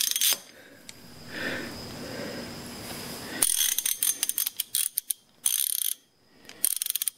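Hand ratchet wrench clicking in quick runs of sharp ticks, starting about halfway through and broken by short pauses, with quieter tool handling before it.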